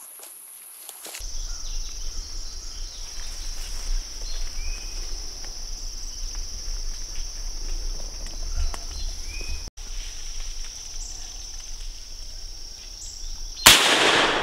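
Insects drone steadily and high-pitched. Near the end a single loud gunshot goes off with a short echo as a squirrel is shot in the treetops.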